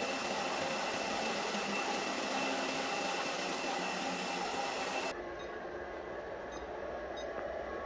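ILIFE V5s Pro robot vacuum running: a steady whir of its suction fan and brushes with a thin high tone over it. About five seconds in the sound changes abruptly, the hiss dropping away and a lower rumble coming up.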